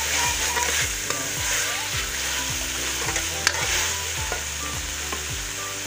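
Black chickpeas sizzling as they fry in masala in a pan while a spoon stirs them through, with one sharper knock of the spoon against the pan about halfway through.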